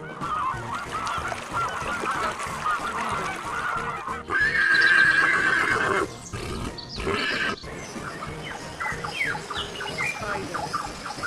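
A flock of birds calling, many short overlapping calls at once, with a louder drawn-out call a little past a third of the way in. The sound breaks off and changes abruptly several times, with scattered short calls near the end.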